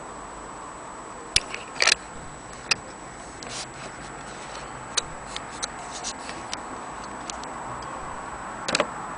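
Small mechanical clicks and clacks at irregular intervals from a vintage folding film camera being handled, over a steady hiss with a faint high whine. The loudest are a quick double clatter about two seconds in and another near the end.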